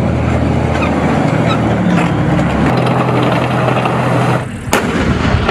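Heavy tank engine running loud and steady with a low hum. It eases off about four and a half seconds in, then a single sharp crack.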